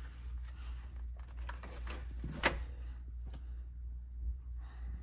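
Small clicks and scrapes of a compact right-angle ratchet screwdriver being worked by hand, with one sharp click about halfway through, over a low steady hum.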